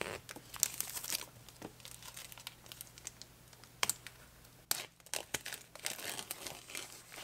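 Clear plastic shrink-wrap being torn and peeled off a cardboard box, crinkling and crackling irregularly with a few sharp snaps, the loudest about four and five seconds in.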